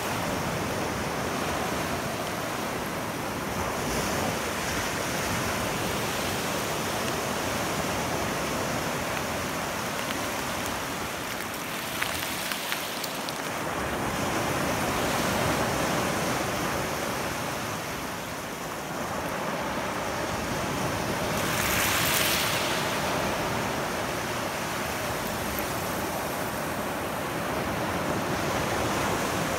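Small surf washing in and out over a shell-covered shoreline: a steady wash with several swells, the loudest about two-thirds of the way through.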